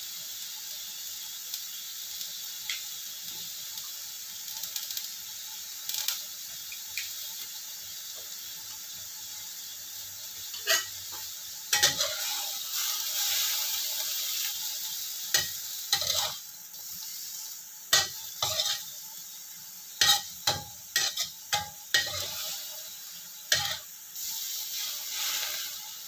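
Greens stir-frying in a wok with a steady sizzle. From about ten seconds in, the spatula repeatedly scrapes and knocks against the wok, the knocks being the loudest sounds.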